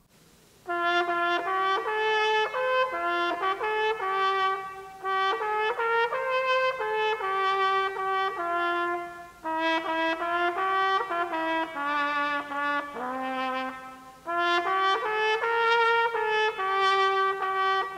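Solo trumpet playing a chorale (hymn) melody, one held note after another, in phrases separated by short breath pauses.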